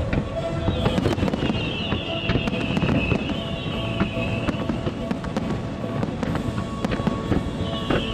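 Fireworks display: a dense run of crackling and popping shell bursts, with a high whistle falling in pitch from about a second in, over music.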